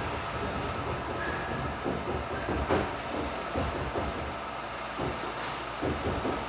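Screen printing press machinery running: a steady mechanical rumble with a sharp clank a little before halfway and a few knocks near the end.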